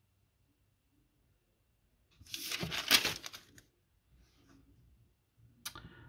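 Paper pages rustling as they are turned: one rustle of about a second and a half midway, and a brief second rustle near the end.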